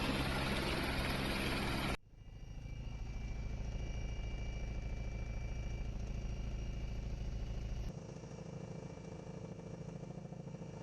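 Engine noise across several edited shots: a loud, noisy stretch cuts off abruptly about two seconds in, giving way to a steady low engine hum, which changes to a quieter hum near the end.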